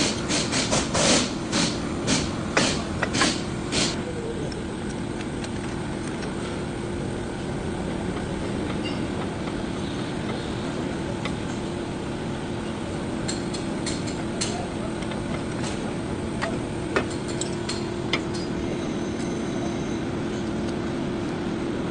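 A vehicle running with a steady rumble. In the first four seconds there is a quick, uneven series of short harsh noises, and a few scattered clicks follow.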